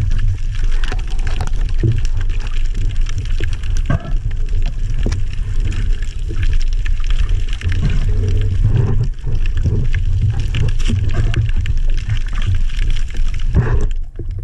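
Underwater sound picked up through a waterproof camera housing: a steady, muffled low rumble of water moving past the camera, with scattered faint clicks and knocks.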